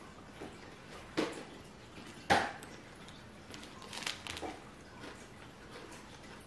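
A snack packet of Pepero chocolate sticks being handled: a few short, sharp crinkles and rustles. The loudest comes about two seconds in, and a quicker cluster follows near the middle.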